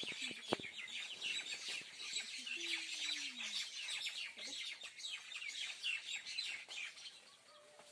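Many small birds chirping over each other in a busy, continuous morning chorus of rapid high chirps. A single short low call slides downward about three seconds in.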